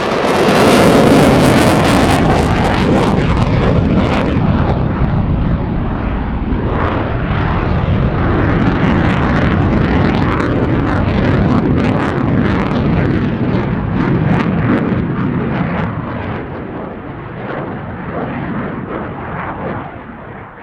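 Fighter jet engine in afterburner: loud, rough jet noise full of fine crackling that starts abruptly, holds strong for about fifteen seconds, then fades off near the end.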